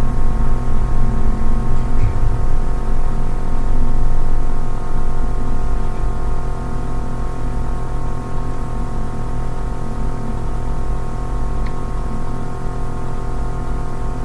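A steady hum with several steady tones layered above it, unchanging throughout.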